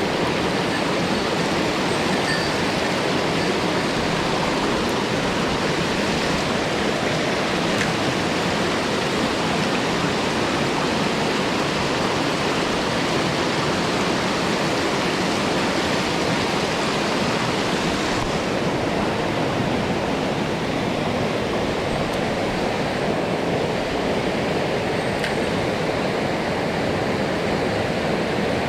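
Mountain stream rushing over rocks: a steady, even rush of water that does not change.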